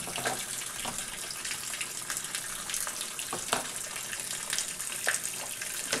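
Water from a hose running steadily into the wash tub of a semi-automatic top-loading washing machine. A few light clicks come from the plastic lint filter being handled.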